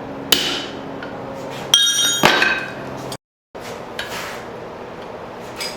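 Hammer strikes on hot steel at the anvil, about three sharp blows with a metallic ring, over a steady low hum. The sound drops out briefly after about three seconds, and only a few light clinks follow.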